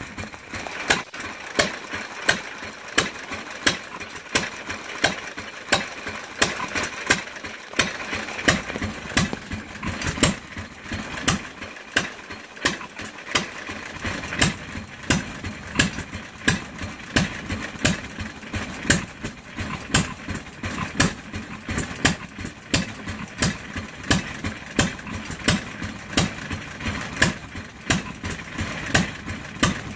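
Antique stationary gas engines, a 3 hp Fairbanks-Morse Z and a 2 hp Novo, running together and firing in sharp exhaust pops. The pops come about once a second at first; from about eight seconds in, a second engine's pops fall between them.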